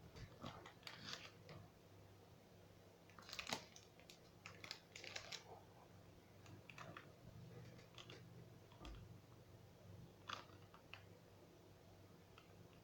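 Near silence: room tone with a faint steady low hum and a few soft, scattered clicks and rustles.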